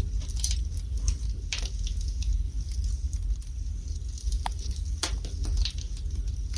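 Wood fire burning in a fireplace: irregular crackles and sharp pops of the burning logs over a steady low rumble.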